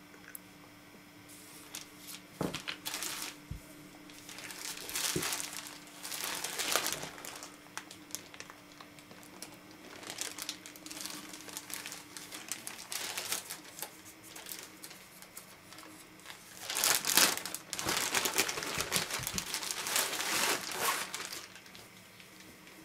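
Clear plastic bag crinkling in irregular bursts as it is handled and opened and a shirt is pulled out of it, the longest and loudest crinkling near the end.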